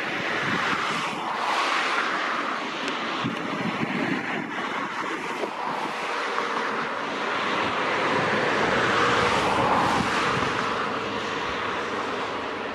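Road vehicles passing at speed: a rushing noise of tyres and engines that swells twice, once about a second in and again near the middle. Wind buffets the microphone throughout.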